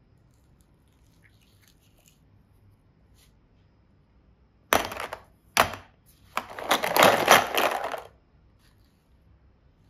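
Hard plastic toy capsules handled over a plastic basket: faint ticks, then two sharp plastic knocks about a second apart, then a second and a half of dense clattering and rattling.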